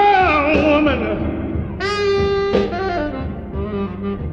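Background music with a melodic lead line and a long held note about two seconds in.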